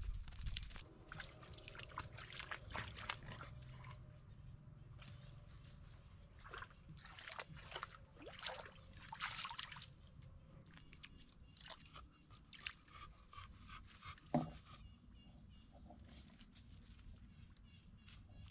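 Shallow water splashing and sloshing in irregular spells as a Shar Pei wades and moves in it, with one short louder sound about fourteen seconds in.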